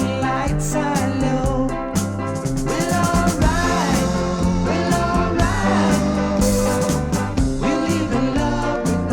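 A 1970s pop song from a vinyl record: drums keep a steady beat under a walking bass line and a lead melody.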